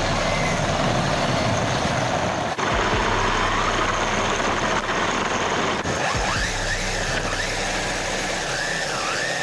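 UDIRC 1607 Pro 1/16-scale brushless RC drift car driving on asphalt: a steady rush of tyre and drivetrain noise, with the brushless motor's whine rising and falling. It breaks off abruptly a few times.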